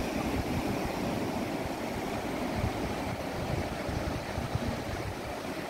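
Wind rushing and buffeting on a phone microphone, over a steady wash of distant surf.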